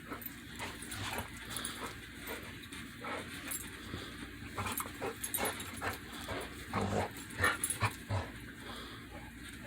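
Dogs sneezing over and over, a run of short sharp sneezes and snorts, loudest about seven to eight seconds in.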